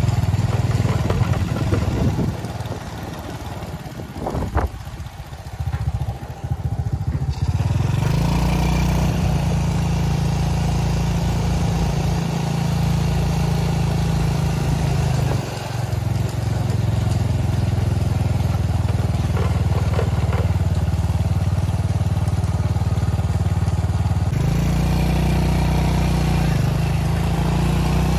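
Motorcycle engine running. It is quieter for a few seconds early on, then runs steadily, with brief changes in engine note about halfway through and again near the end.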